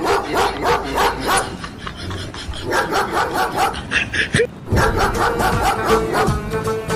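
Recorded dog barking, many quick barks in a row, played back through a Bluetooth speaker.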